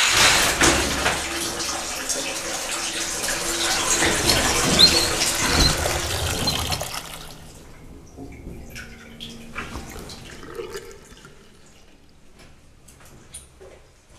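Shower water running, a steady spray of hiss in a tiled shower, which stops about seven seconds in as the water is shut off; scattered faint clicks and knocks follow.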